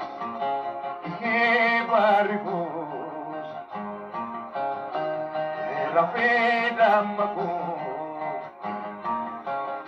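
Acoustic guitar picked steadily, with a man's singing voice coming in twice for a short phrase, heard as played off a television.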